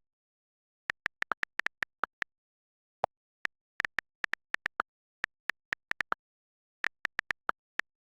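An irregular series of short, sharp clicks, about thirty over eight seconds, in quick runs with brief gaps, against complete silence.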